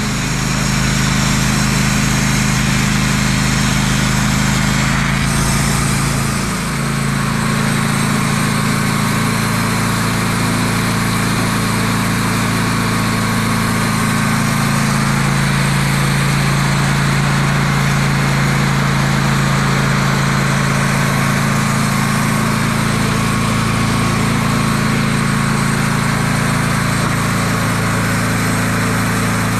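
Wood-Mizer portable sawmill's engine running steadily, its pitch and level dipping briefly about six to seven seconds in before settling again.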